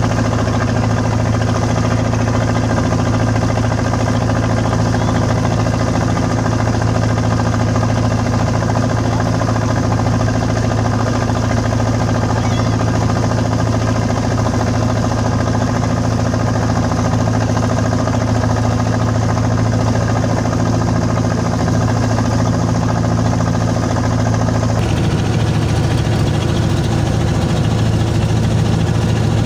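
Boat engine running steadily at a constant speed, with a low, even hum; its sound changes about 25 seconds in.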